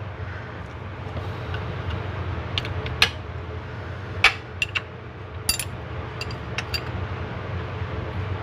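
Sharp metal clinks of a combination wrench against the nuts and studs of a Volkswagen Beetle's transmission nose mount as the nuts are turned, about eight clinks, most of them in the middle few seconds. A steady low hum runs underneath.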